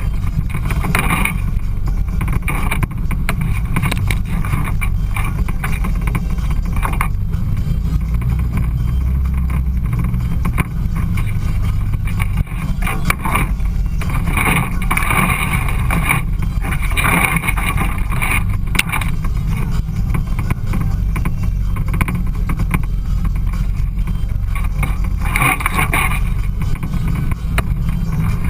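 Side-by-side UTV driving on rough trail: a steady low engine and wind rumble on the vehicle-mounted microphone, with several brief louder bursts of higher-pitched noise.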